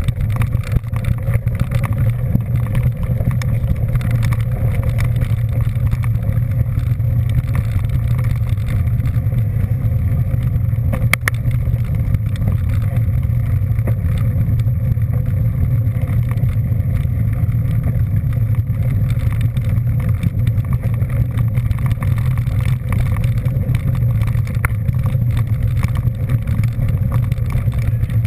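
Steady engine and road rumble from a moving vehicle, with one short click about eleven seconds in.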